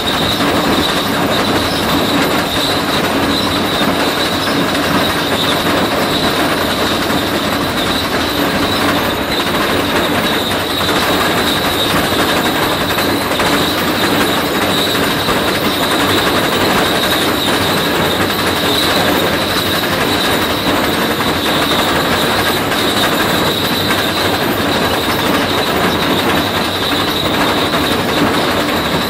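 Tesmec 1475 rock saw trencher cutting through rock: a loud, steady grinding clatter from its toothed digging chain working the rock, with a steady high-pitched metallic whine over it.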